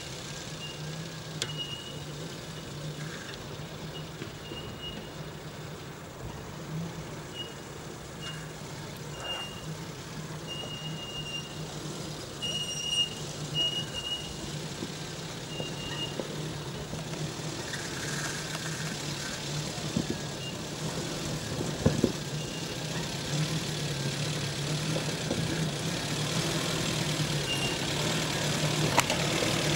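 UAZ-469 engine running at low revs as the vehicle creeps down a steep rocky slope, growing steadily louder as it approaches, with a few knocks of the tyres on rock near the end. Short high-pitched tones come and go through the first half.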